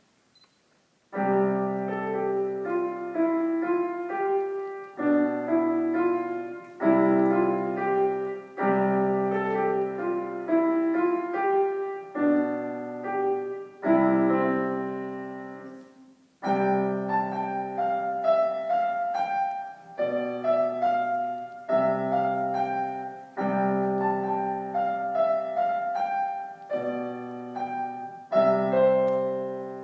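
Piano played in a slow run of struck chords, each ringing and fading before the next, starting about a second in, with a brief break about halfway through.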